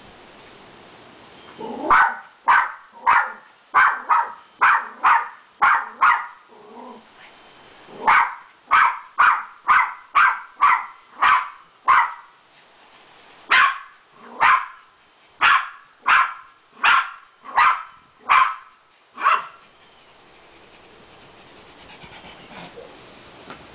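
A dog barking in three runs of quick single barks, about two a second, with short pauses between runs. The barking stops about five seconds before the end.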